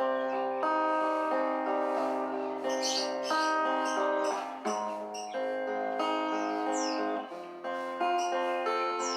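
Background music of plucked acoustic guitar with sustained notes changing every second or so, with a few short high bird chirps over it, one falling in pitch about seven seconds in.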